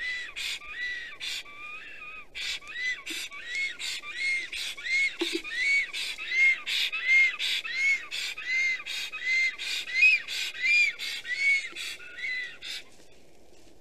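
Male black stork calling on its nest: a long series of wheezy, arched whistles, about two to three a second, with a short break about two seconds in, stopping near the end.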